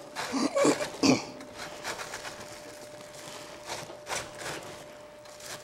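Raw cauliflower being grated, with a few short rasping strokes in the first second and then scattered faint scrapes. A faint steady hum runs underneath.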